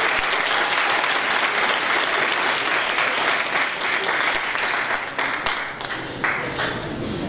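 Audience applauding, a dense patter of hand claps that thins out over the last couple of seconds into scattered single claps.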